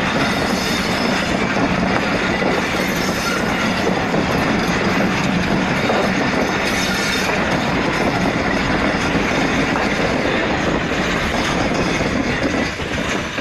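Pakistan Railways passenger coaches rolling past close by, with steady wheel-and-rail noise. The sound falls away near the end as the last coaches go by.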